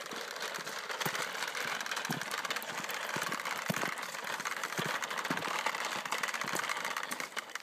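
A child's plastic toy push lawnmower rolling over a rough asphalt driveway, its wheels and mechanism giving a steady rattling clatter of rapid clicks.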